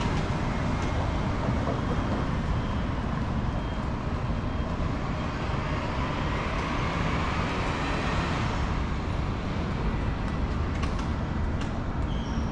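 City street traffic noise: a steady low rumble, with a vehicle passing that swells in the middle and fades after about eight seconds.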